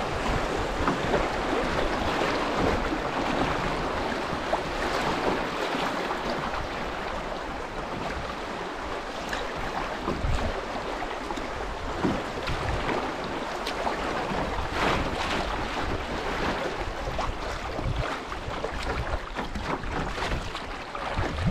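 River water rushing through a shallow riffle around a canoe's bow, a steady noisy wash, with a few brief knocks now and then.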